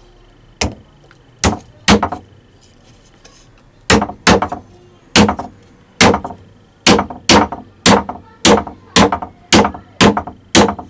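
Hammer blows on wood, driving small nails into a wooden strip: three spaced strikes, then after a short pause a steady run of about a dozen strikes, roughly two a second.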